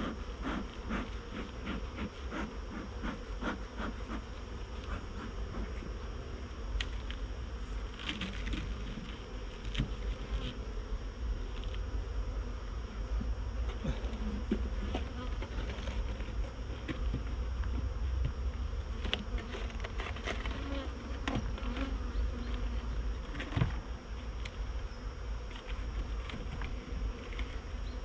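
Honeybees buzzing around an open hive, with scattered knocks and clicks from the wooden hive boxes and roof being handled. There is one sharper knock a few seconds before the end.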